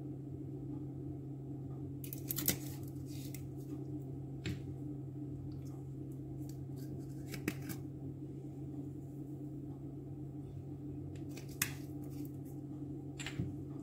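A few short, sharp clicks and rustles a couple of seconds apart, from spice containers being handled while dried herbs and spices are sprinkled onto raw chicken pieces in a glass dish. Under them is a steady low hum.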